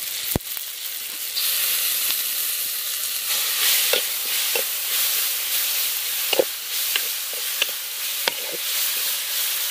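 Onions, tomatoes and freshly added ginger-garlic paste frying in hot oil in a blackened wok (kadai): steady sizzling that gets louder about a second and a half in. The mix is stirred throughout, and the utensil scrapes and knocks against the pan several times.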